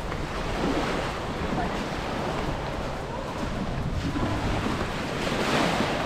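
Wind buffeting the microphone over the steady wash of small waves on a beach, with a louder wash or gust about five seconds in.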